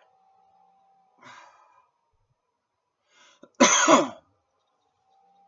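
A person coughing once, a short loud cough about three and a half seconds in, after a faint breath about a second in.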